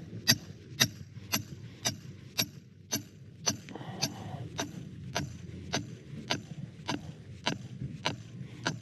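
Hammering while concrete forms are being set up: a steady run of sharp, ringing blows, about two a second.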